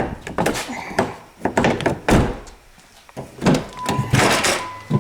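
Several thunks of a car door and handling, then a steady electronic beep tone starts near the end.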